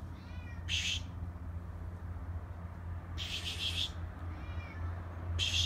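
A cat meowing faintly, two short high-pitched meows, interleaved with three brief hissy bursts that are the loudest sounds, the longest around three seconds in.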